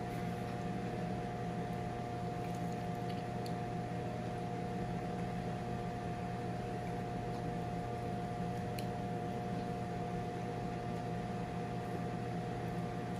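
Steady hum of a running kitchen appliance fan, with a constant mid-pitched whine over it, and a few faint clicks.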